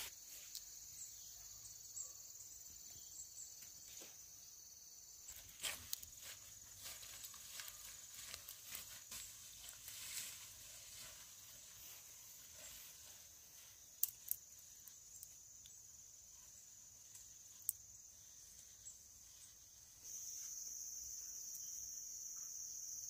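Faint steady high-pitched chirring of insects, with scattered sharp clicks and small rustles over it. The insect sound steps up louder about twenty seconds in.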